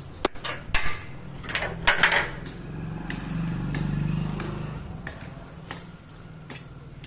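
Someone hurrying down a staircase with a phone in hand: a run of sharp knocks and clanks in the first two seconds or so, then a low rumble that fades.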